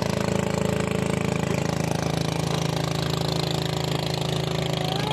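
Small motorboat's engine running steadily at an even speed.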